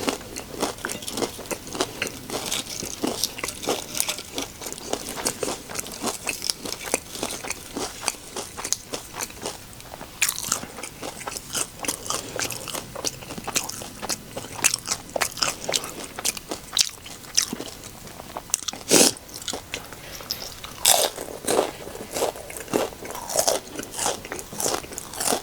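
Close-up chewing and crunching of microwaved nachos, tortilla chips topped with melted cheese, with a steady run of small crackles and a few louder bites.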